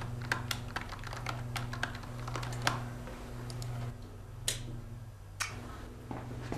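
Typing on a computer keyboard: a quick, uneven patter of key clicks for about three seconds, then a few separate clicks, a hand moving to the mouse and clicking. A low, steady hum runs underneath.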